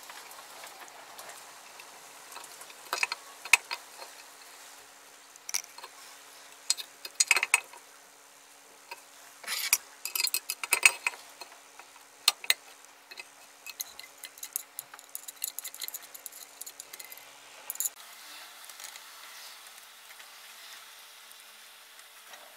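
Steel cutting pliers prying and gripping at the pins of the planer's depth-scale plate on its metal housing: irregular sharp metallic clicks and scrapes, growing faint after about eighteen seconds.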